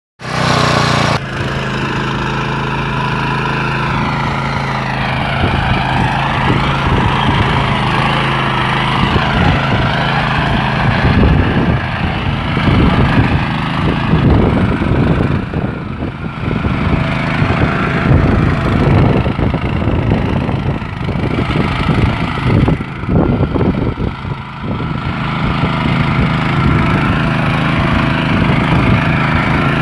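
Small engine of a walk-behind rotary tiller running steadily as its tines churn through weedy soil. The sound turns uneven and choppier from about ten seconds in.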